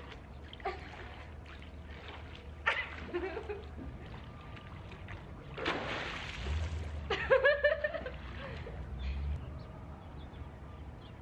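Swimming-pool water splashing and sloshing, with one burst of splashing lasting about a second, about six seconds in.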